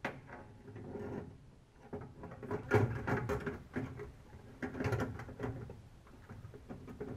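Steel window regulator and its hardware clunking and rattling against the sheet-metal shell of a 1966 Dodge Charger door as it is worked into place by hand, with two busier runs of clatter about three and five seconds in.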